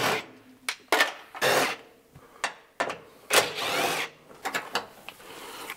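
Plastic interior trim being pulled loose from a car's roof rail: several short noisy scrapes and pulls, the longest about three and a half seconds in, then a few quick clicks near the end.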